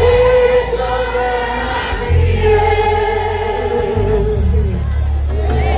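A crowd singing a gospel hymn together in long held notes, with a low rumble underneath.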